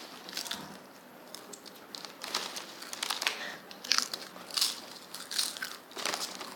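Crisp potato chips being bitten and chewed close to the microphone: a string of irregular, sharp crunches.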